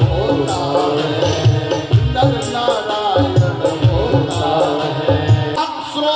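Devotional bhajan over a loudspeaker system: a voice singing a melody over steady drum beats. The drum stops shortly before the end while the singing carries on.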